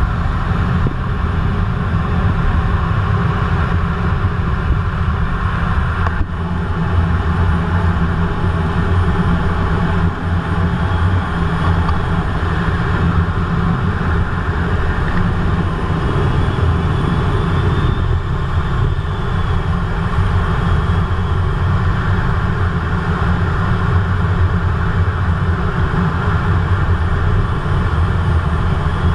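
Steady rumble of jet engines and rushing air heard inside the cockpit of a two-seat RAF Eurofighter Typhoon in low-level flight, with a faint high whine rising and falling about two-thirds of the way through.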